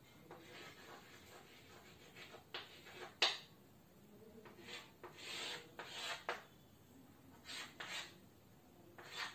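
Chalk drawing lines on a chalkboard: a series of separate strokes, the sharpest about three seconds in.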